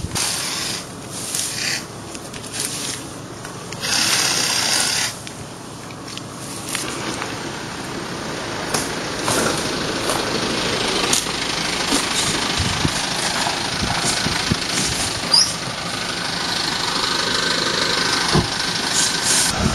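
Vehicle running with rushing wind or road noise: loud gusts of noise in the first few seconds, then a steady rush that slowly builds.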